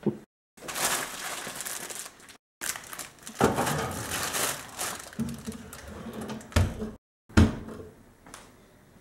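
Aluminium foil crinkling and rustling as a foil-wrapped dish is handled and pulled from an oven, with clattering of the tray. Two sharp clunks come a little after halfway, from the oven and its tray, and the sound is broken by a few short dead-silent gaps.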